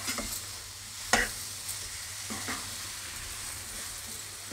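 Steel spatula stirring and scraping potato cubes and soya chunks through thick masala in a kadhai, over a steady sizzle of the masala frying in oil. A few sharp knocks of the spatula on the pan come through, the loudest about a second in.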